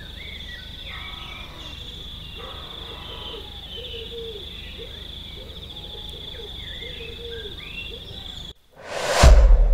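Outdoor ambience: a continuous high, pulsing insect trill with short chirping animal calls over it. Near the end the ambience cuts off and a rising whoosh swells into a loud, deep hit.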